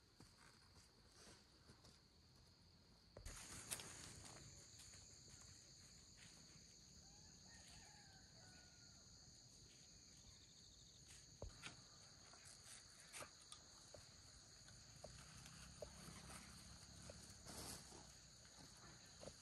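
Faint, steady high-pitched chorus of insects, which gets abruptly louder about three seconds in, with a few sharp clicks or taps scattered through it.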